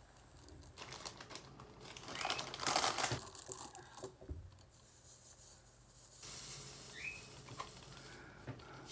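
Small plastic bag of diamond painting drills being handled and opened, crinkling, loudest about two to three seconds in, then quieter rustling.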